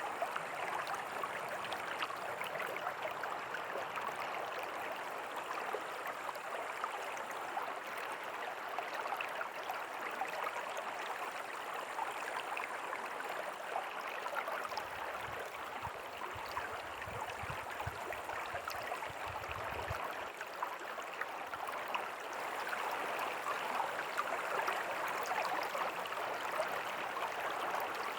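River water flowing in a steady, even rush, with no let-up. About halfway through, a low rumble comes in for a few seconds.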